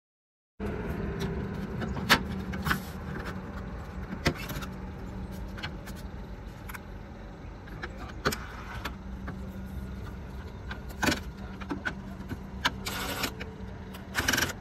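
A sheet-metal chimney cap being handled on a clay flue tile, with sharp clicks and knocks of metal every few seconds over a steady low hum. Near the end a cordless DeWalt drill runs in two short bursts, driving screws to fasten the cap.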